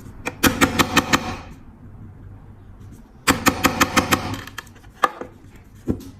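Rapid sharp metallic taps on a lighter being repaired, in two runs of about six taps at roughly five a second, then two single clicks near the end.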